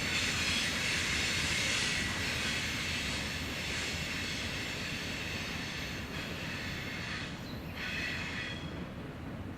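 Freight train cars rolling past on the rails, with a faint high wheel squeal over the rumble. The sound slowly fades, and the hiss drops away near the end as the train moves off.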